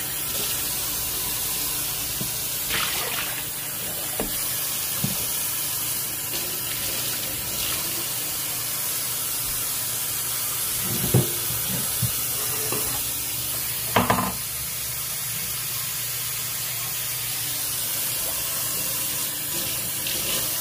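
Water running from a kitchen tap into a stainless steel sink, a steady rush, with a few sharp knocks a little past halfway through.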